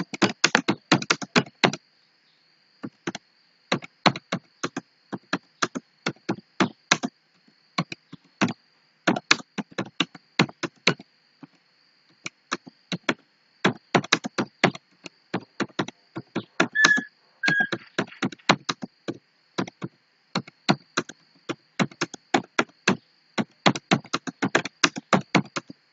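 Typing on a computer keyboard during a timed typing test: uneven runs of quick key clicks with short pauses between words. Two short high-pitched tones sound about halfway through.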